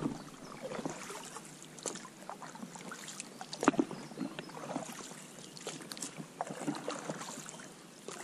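Water splashing and lapping around an inflatable PVC boat, with irregular light knocks and clicks against the hull. The loudest is a sharp knock about three and a half seconds in.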